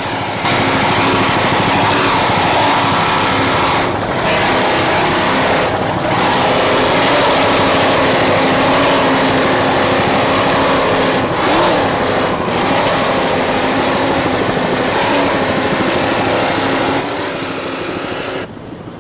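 Offshore racing powerboat engines running at speed: loud, steady engine and rushing noise that dips briefly a few times and falls off near the end.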